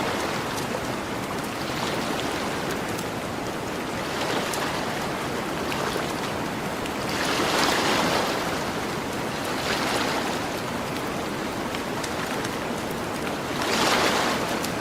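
Gentle ocean waves washing onto a beach as a steady hiss, swelling into louder washes about halfway through, again a little later and strongly near the end, with a campfire crackling in small scattered pops throughout.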